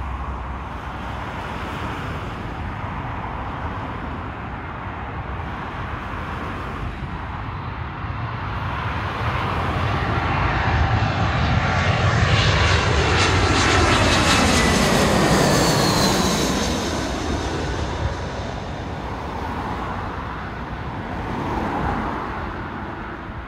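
Airbus A319-131 jet airliner on final approach, its IAE V2500 turbofan engines passing low overhead. The sound builds to a peak about halfway through, with a whine that falls in pitch as the jet goes over, then fades as it heads for the runway.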